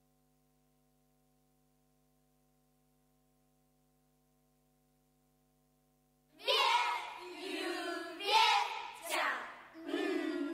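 Near silence with a faint steady hum for about six seconds, then a group of voices starts chanting the Hakka-dialect recitation in short phrases.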